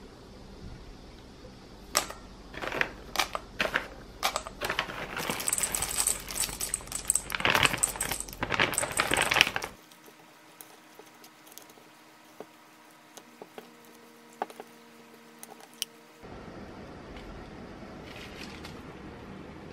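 Whole almonds and chocolate chips poured from a pouch into a stainless steel mixing bowl, rattling and clicking against the metal with the pouch crinkling, for about the first ten seconds. After that, only faint ticks and scrapes as a silicone spatula stirs them into the thick dough.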